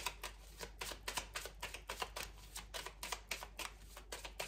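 A deck of oracle cards being shuffled by hand: a steady run of short card slaps and flicks, about four or five a second.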